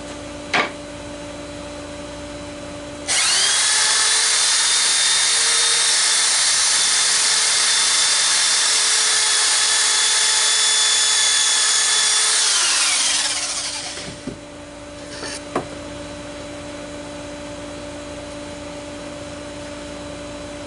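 Electric drill running at steady speed for about nine seconds, boring out a dowel hole in the wooden bench to elongate it so the joint lines up better, then winding down with falling pitch. A few light knocks come before and after.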